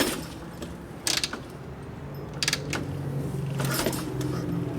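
Motorcycle kick-starter mechanism clicking and ratcheting as it is worked, a few sharp metal clicks about a second apart. The starter gear is slipping and the speakers say it needs more spring tension. A low steady hum builds from about halfway.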